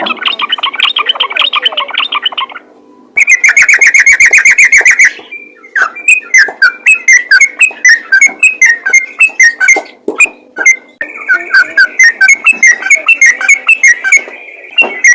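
Yellow-vented bulbul (trucukan) singing a loud, rapid-fire series of short chirping notes. The song is broken by a few abrupt cuts and restarts, as in an edited loop of recorded song.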